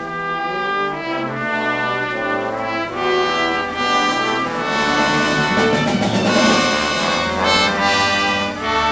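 Orchestral background music with brass playing sustained chords, swelling to its fullest about six seconds in.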